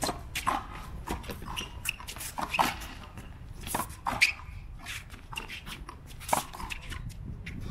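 Racquetball rally on a concrete court: repeated sharp pops of the hollow rubber ball coming off the racquet strings and the concrete walls and floor, at an irregular pace, the loudest about four seconds in.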